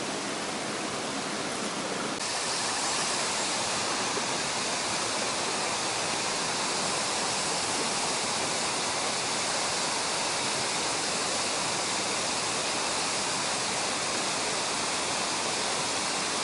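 Rushing water of a mountain stream running high after rain: a steady rush that grows brighter and a little louder about two seconds in as the microphone comes down close to the surface.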